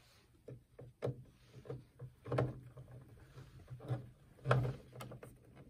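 Irregular clicks and knocks of hands handling and fitting the plastic parts of a stereo's CD or tape mechanism, about a dozen, the loudest about four and a half seconds in.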